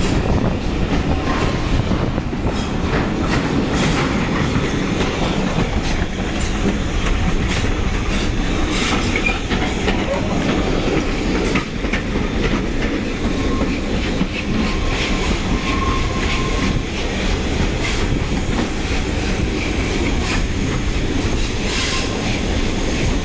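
Railway carriage wheels running on the track, heard from the carriage window: a steady rumble with irregular clickety-clack of wheels over rail joints. A faint wheel squeal comes now and then, longest about two-thirds of the way through.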